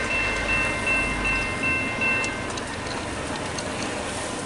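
Railroad grade-crossing bell ringing in even strokes about twice a second over a low rumble. The bell stops a little over two seconds in, leaving a steady hiss.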